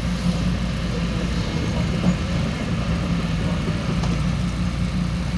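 Excavator's diesel engine running steadily with a low, even rumble.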